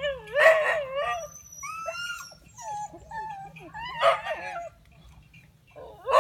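Street dogs yelping and whining in a squabble: wavering, drawn-out cries in several bursts, the loudest about half a second in and again around four seconds.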